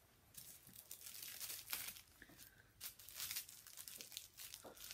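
Faint rustling and crinkling of a tissue paper sewing pattern in short, separate bursts as it is handled and unpinned from the fabric.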